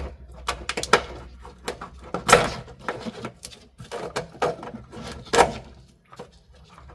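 Car wiring harness and its plastic connector plug being pulled through a rubber grommet: irregular plastic clicks, knocks and rustling, loudest about two and a half and five and a half seconds in.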